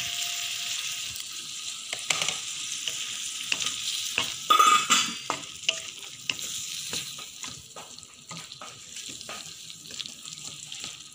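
Shrimp, Chinese sausage and diced vegetables sizzling in a steel wok as a wooden spatula stirs and scrapes them, with repeated clicks of the spatula on the pan and a louder scrape about halfway through. The sizzle is strongest at first and gradually fades.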